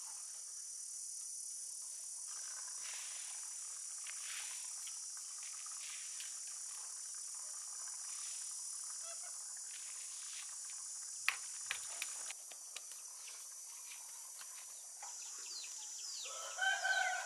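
Steady high-pitched chorus of insects, with a few sharp clicks a little after eleven seconds in and a chicken starting to call near the end.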